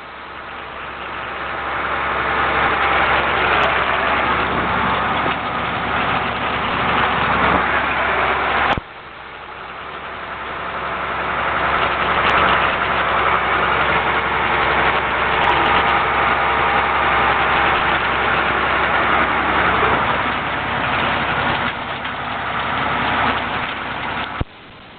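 Farm tractor running while working hay, getting louder over a few seconds as it draws near. The sound cuts off abruptly about a third of the way in, builds up again, then drops suddenly near the end.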